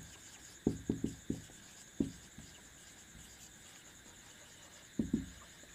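Marker pen writing on a whiteboard: a quick run of short strokes in the first second and a half, another about two seconds in, and a couple more near the end.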